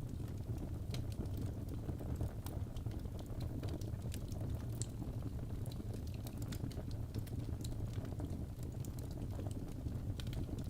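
Wood fire burning in a fireplace: a steady low rumble of the flames with frequent irregular sharp crackles and pops from the burning logs.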